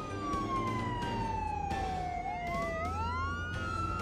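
Ambulance siren wailing: two siren tones slide slowly down, then glide back up a little after halfway, one slightly behind the other, over a low steady hum.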